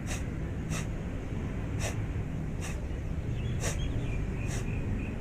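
Sharp, forceful breaths through the nose, repeating about once a second as a breathing exercise, over a steady low rumble.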